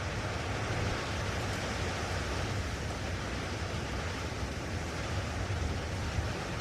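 Steady wind blowing across an open hilltop, with a gusting low rumble of wind buffeting the microphone.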